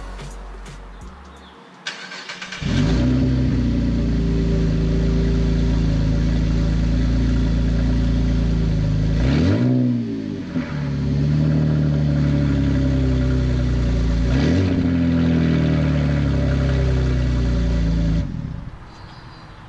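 Holden VE SV6's V6 engine with its rear mufflers removed, starting about two and a half seconds in and running loud and raw through the open exhaust, a sound likened to a dying tractor. The revs rise and fall twice, and the engine cuts off near the end.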